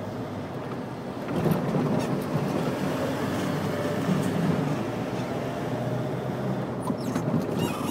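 Engine and tyre noise of a road vehicle driving in city traffic, growing louder as it pulls away and picks up speed about a second and a half in.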